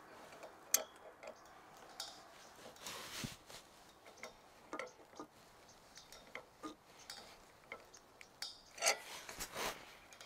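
Pipe wrench working a galvanized steel pipe elbow tight on taped threads: scattered light metal clicks and scraping, with a sharp click under a second in and longer scrapes about three seconds in and near the end.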